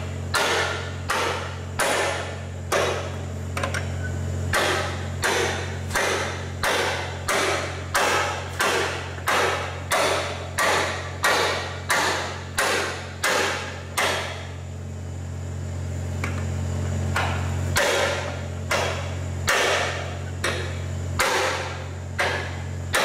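Hand hammer striking a metal bar held in a round metal pipe fitting, in a steady run of ringing blows about one and a half a second, which stops for a few seconds about two-thirds of the way through and then picks up again. A steady low hum runs underneath.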